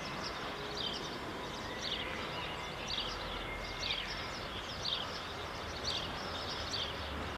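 Steady background noise with a bird repeating a short, high, falling chirp about once a second.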